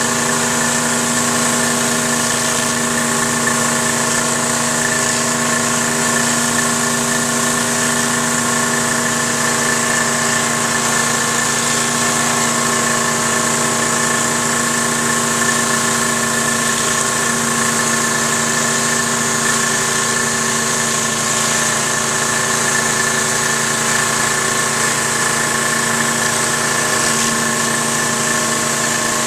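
Troy-Bilt 2700 PSI pressure washer's gas engine running steadily, with an even hiss of high-pressure water spray over it.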